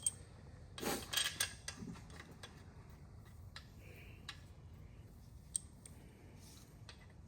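Light metallic clinks and ticks of main-cap bolts being handled and threaded back into an LS1 engine block by hand. A short cluster comes about a second in, then a few scattered single ticks.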